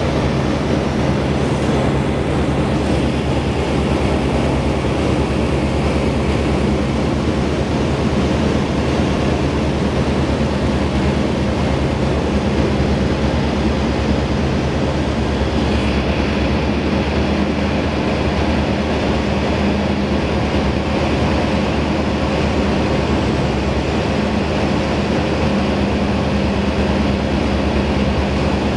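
Rotax 912ULS flat-four engine and propeller of a Merlin ultralight running steadily in flight, heard from inside the open-framed cockpit with airflow noise. The engine note shifts about halfway through, as on a power change during the approach.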